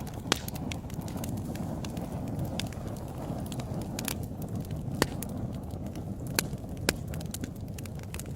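Wood fire in a fireplace crackling over a steady low roar of flame, with scattered sharp pops; the loudest come about five seconds in and twice near the end.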